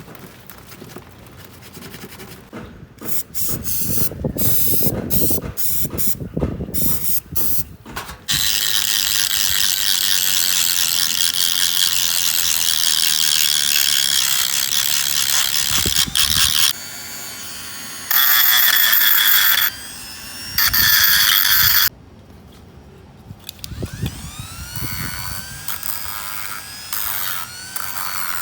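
Bicycle workshop sounds: ratcheting clicks and knocks from parts being worked, then a long hiss that starts and stops abruptly several times.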